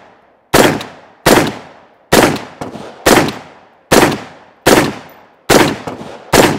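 CMMG Anvil semi-automatic rifle in .458 SOCOM fired in quick succession: eight loud shots a bit under a second apart, each dying away quickly.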